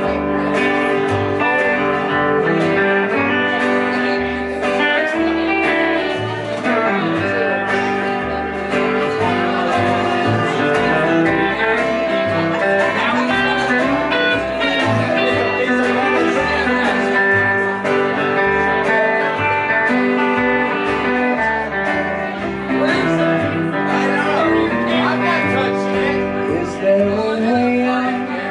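Live country band playing an instrumental break: guitar over a walking upright bass line, continuous and loud.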